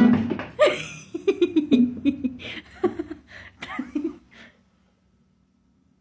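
A sharp, loud sound at the start, then a person laughing in short repeated bursts that die away about four and a half seconds in.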